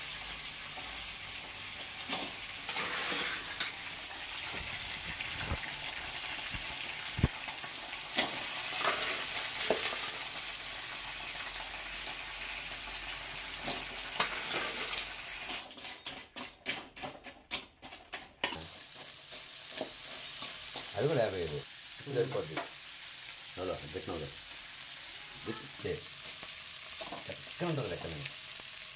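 Boiled crab pieces sizzling as they fry in hot oil in a pan, stirred with a spoon that scrapes against the pan. The sizzle drops out briefly about two-thirds of the way through, then carries on with more frequent scraping strokes.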